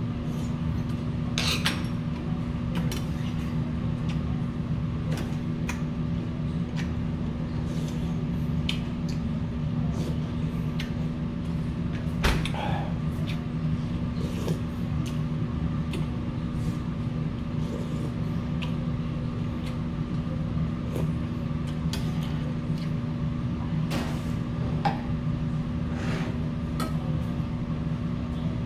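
Scattered clicks and clinks of a metal spoon and chopsticks against metal bowls while eating soup and rice, over a steady low machine hum.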